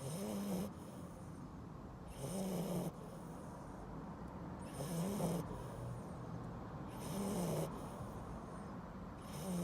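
Sleeping dog snoring, five short snores in a slow, even rhythm, one about every two and a half seconds.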